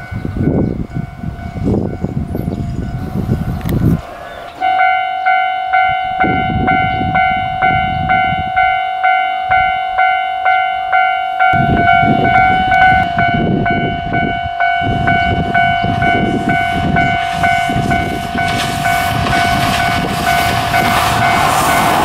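Japanese level-crossing alarm bell ringing in an even, repeated ding, a little under two strokes a second, over a low gusting noise. In the last few seconds the KTR001 diesel railcar's running noise rises as it approaches the crossing.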